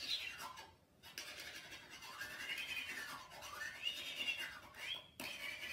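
A slow melody carried by a single high, pure tone that glides smoothly up and down in pitch rather than stepping between notes. It breaks off briefly about a second in and again near the end.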